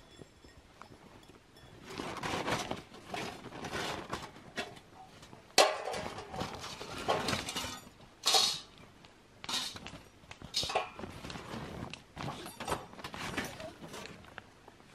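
A nylon stuff sack rustling as the folded parts of a titanium folding tent stove are pulled and shaken out, with sharp metallic clinks and knocks as the thin titanium plates and pipe strike each other and drop onto the snow.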